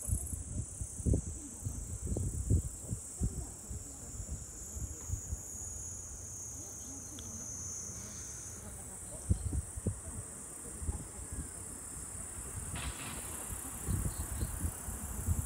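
A steady, high-pitched chorus of insects such as crickets, with one higher tone dropping out about halfway through. Irregular low thumps, louder than the insects, come and go, and a low rumble builds near the end.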